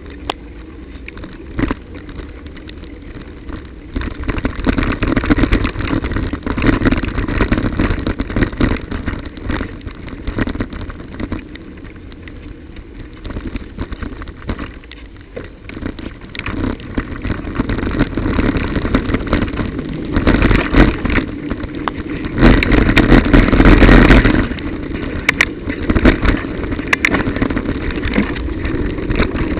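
A bicycle ride along a wet, broken road in the rain: steady tyre and road noise with frequent small rattles and knocks from the bike, and car traffic. A louder rush about three quarters of the way through.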